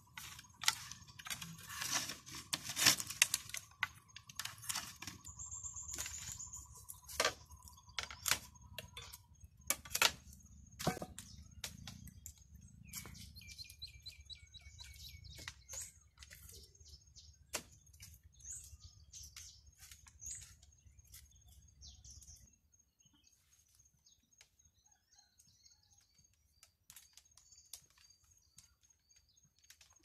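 Bamboo slats and vine lashings being handled and worked by hand, giving sharp clicks and taps that are densest in the first half and thin out later. Throughout, a high, evenly repeating chirping comes from wildlife, and a low background rumble cuts off about three-quarters of the way through.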